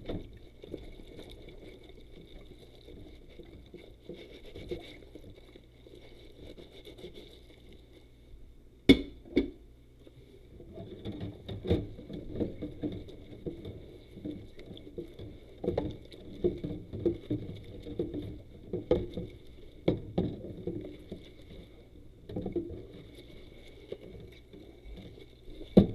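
Rubber-gloved hands scrubbing and rubbing dishes, an uneven run of rubbing and scraping strokes. A sharp knock comes about nine seconds in, and the scrubbing grows busier from about eleven seconds on.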